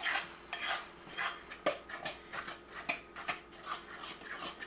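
A spoon stirring thick pumpkin muffin batter in a ceramic mixing bowl: rhythmic scraping strokes, about two to three a second, with a sharp clack of the spoon against the bowl a little under two seconds in.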